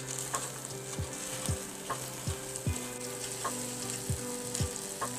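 Negi-yaki sizzling on an electric hot-plate griddle, with spatulas tapping and scraping against the pan a dozen or so times at an uneven pace as the pancake is cut.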